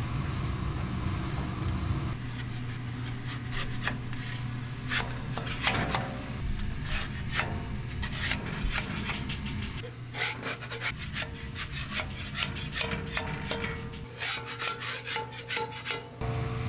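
Flat metal spatula scraping and cutting a crisp sheet of scorched rice (nurungji) in a large steel pan, then scraping the bare pan bottom near the end: a run of rasping scrapes over a steady low hum.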